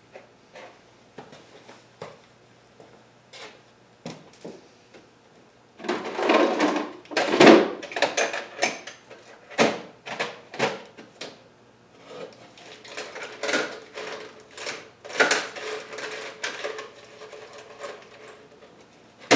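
Small metal hardware clattering and rattling as someone rummages through a box of loose parts, likely hunting for a big washer. It starts with a few scattered light clicks, then comes in two long bursts of dense clinking.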